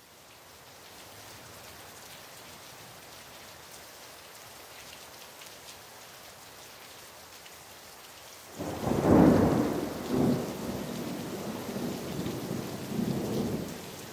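Steady rain hiss fading in, then a loud clap of thunder about eight and a half seconds in that rolls on in rumbles to near the end.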